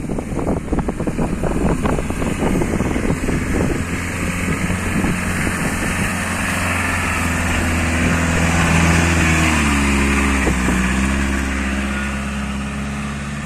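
Toyota Hilux pickup wading through a river: water splashing around the wheels over the engine for the first few seconds, then the engine running steadily as the truck climbs out onto dry ground, its note stepping up in pitch about two-thirds in.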